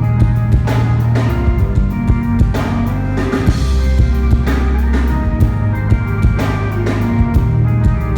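Band music with a steady drum-kit beat, kick and snare, over heavy sustained bass notes and held chords.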